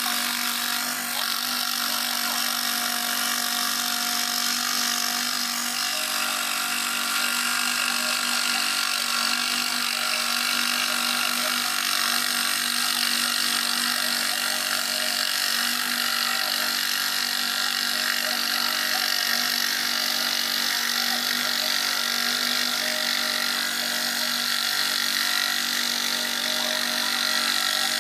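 Scroll saw running steadily with its blade cutting through a hand-fed board: a constant machine hum and buzz that stays even throughout.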